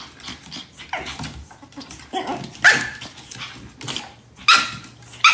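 Pug puppy barking at a grooming glove in short, sharp yaps, about five of them, a second or so apart.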